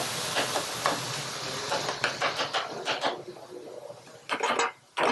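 Minced meat and tomatoes sizzling in an aluminium frying pan on a gas burner while a metal spoon stirs and scrapes, clicking against the pan. The sizzle fades after about three and a half seconds, and a few short clatters follow near the end.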